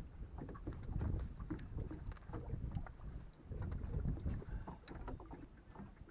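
Wind buffeting the microphone in an uneven low rumble on a small boat, with water lapping at the hull and scattered small knocks and clicks.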